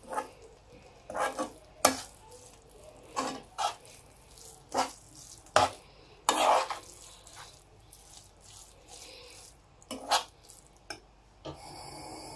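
A spoon stirring grated beetroot and sugar in a frying pan, with about ten irregular scrapes and knocks against the pan. Near the end a steady hiss sets in as the mixture cooks.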